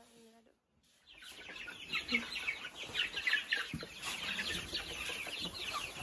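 A flock of young chickens peeping and chirping together: a dense chorus of short, high, falling chirps that starts about a second in and grows fuller.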